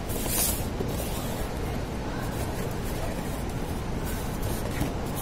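Steady background noise with a strong low rumble. About half a second in comes a brief rustle of paper and cardboard food packaging being handled.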